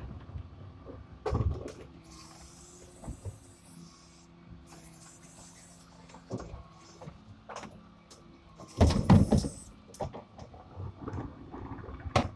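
Refuse truck's rear hydraulic bin lifter cycling a wheelie bin: a steady motor hum with a hiss early on and scattered clanks, then a loud clatter of knocks about nine seconds in.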